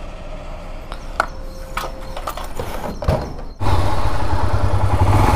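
A few light clicks over a low background hum, then an abrupt switch about three and a half seconds in to a loud Royal Enfield Himalayan single-cylinder motorcycle engine running with a steady low pulse.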